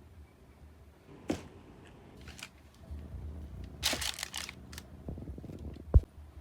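Handling of a sneaker box and its packaging during unboxing: scattered clicks and rustles, a short burst of crinkling a little past the middle, and a low thump near the end.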